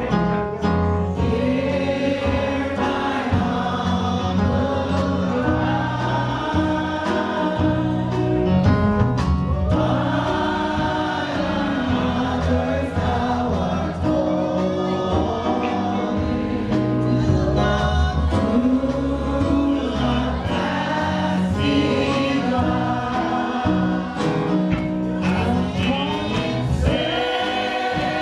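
Gospel music with a choir or congregation singing over an instrumental backing.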